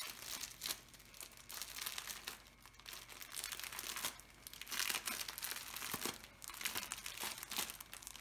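Packaging crinkling and rustling in irregular bursts as it is handled and opened by hand.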